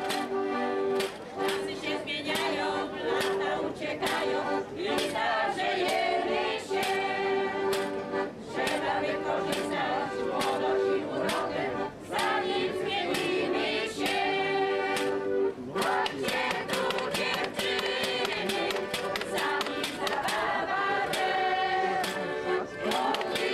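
Folk group singing together in chorus, accompanied by a steady rhythm of sharp clacks from a decorated percussion staff struck with a stick.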